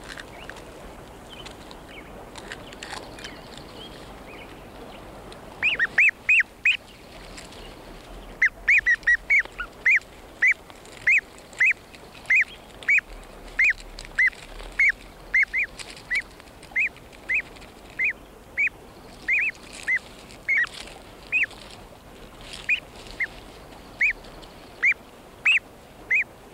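Hatching wood duck ducklings peeping in the nest: short high peeps, a few faint ones at first, then a steady run at about two a second from about six seconds in.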